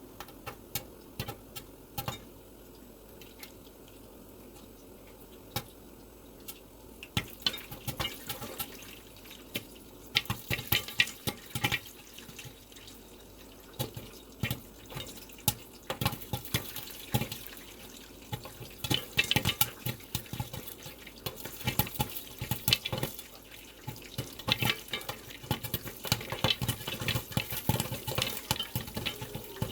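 Popcorn kernels heating in a pot of hot oil: a sizzling crackle with sharp pops, scattered at first and coming thicker and faster from about ten seconds in as the popping gets going.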